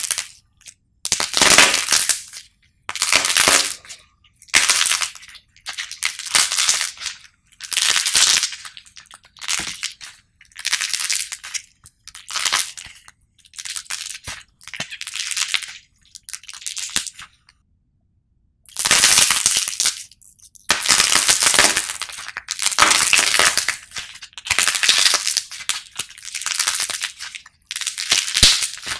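Glossy painted coat of a white clay figure cracking as hands squeeze and tear it apart: repeated bursts of crisp crackling and crunching, about one a second. A pause of over a second comes a little past halfway, and the bursts after it are louder.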